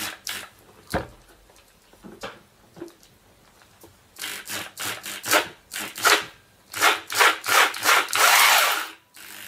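Two-speed electric drill with its gearbox just reassembled, run in short bursts on the trigger: a few clicks first, then from about four seconds in a quick series of short bursts and a longer one near the end.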